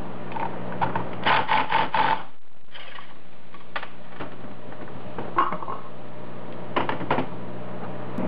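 Metal clatter as an aluminium intake manifold and throttle body are handled and set down on a metal workbench. A quick run of four knocks comes about a second in, then scattered clicks and knocks, all over a steady low hum.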